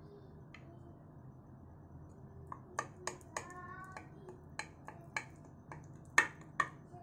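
A knife cutting through set halwa in a glass baking dish, its blade clicking and tapping against the glass bottom. About a dozen sharp clicks start about two and a half seconds in, a few of them with a brief glassy ring, and the loudest come near the end.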